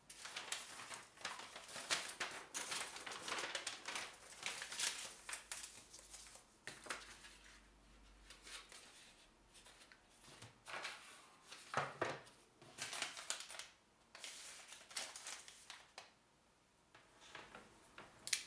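Large paper sheets rustling and crinkling as they are folded and handled, with a few light knocks and clicks from small items being picked up and put down.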